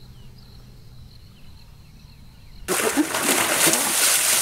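Quiet outdoor ambience with faint high chirps, then about two and a half seconds in a sudden loud rush of splashing water.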